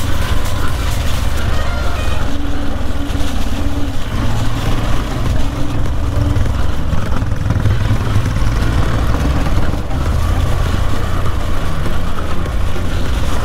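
Motorcycle running steadily on the move, with a heavy low rumble.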